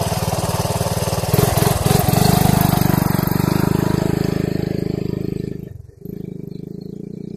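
Honda ATC 125M's small single-cylinder four-stroke engine idling, then getting louder about two seconds in as the three-wheeler pulls away in a high gear, stuck in about fourth. It fades as it drives off.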